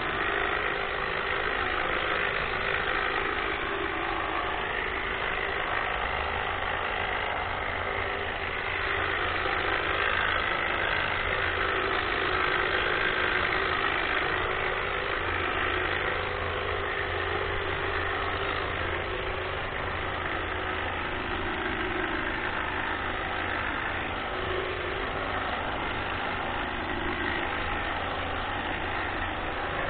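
Greenworks battery-powered hedge trimmer running steadily, its electric motor driving the reciprocating cutter blades, with a low hum joining about six seconds in.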